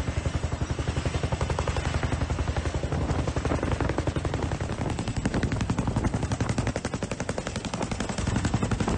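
CH-47F Chinook tandem-rotor helicopter hovering close by, its rotor blades beating in a rapid, even chop.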